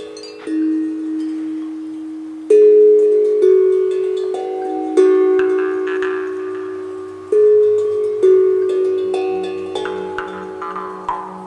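Chillout instrumental music: a slow melody of struck, ringing notes that fade after each one, with a low bass line coming in about nine seconds in.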